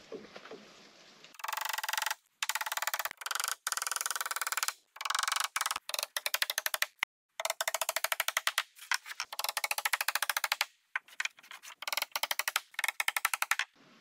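Impact driver rattling in a string of bursts, each a second or two of rapid hammering with short pauses between, as it drives screws into wall framing.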